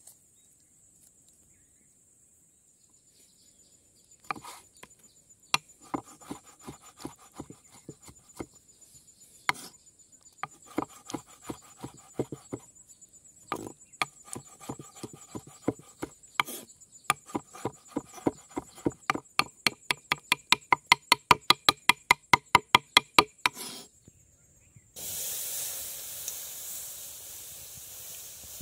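Kitchen knife chopping a peeled tomato on a wooden cutting board: scattered chops at first, then a quick even run of about five chops a second that stops about 24 seconds in. Insects trill steadily and high in the background. Near the end a steady hiss begins.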